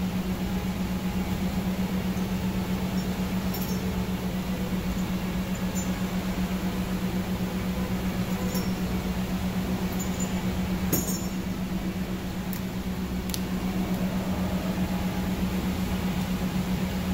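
A steady, low mechanical hum with a fast, even pulse, with a few light metallic clinks of tools now and then.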